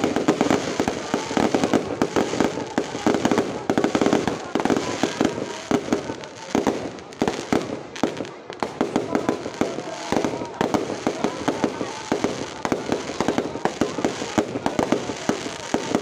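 Fireworks display going off in rapid, continuous succession, many bangs and crackles overlapping.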